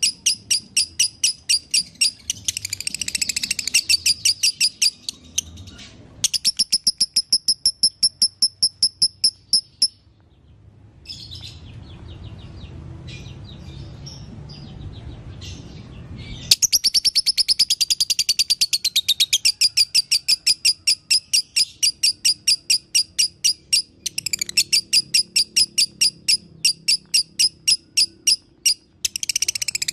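Lovebird singing in long runs of rapid, evenly spaced shrill chirps, about four a second: the chattering 'dobelan' song style. It breaks off for several seconds near the middle and then resumes.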